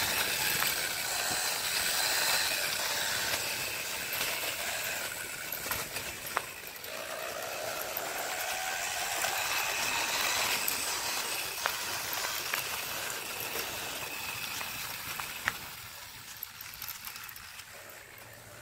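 Homemade electric kick scooter's DC motor whining as it drives the rear wheel, the pitch rising and falling with speed, over the rumble of the small wheels on concrete. A couple of sharp clicks, and the sound fades near the end as the scooter moves away.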